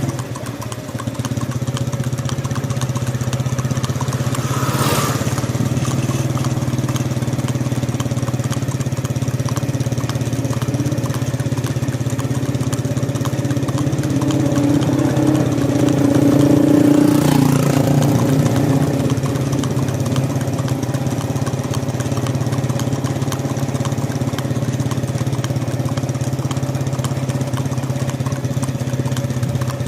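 An engine idling steadily, growing louder and higher for a few seconds past the middle before settling back to idle.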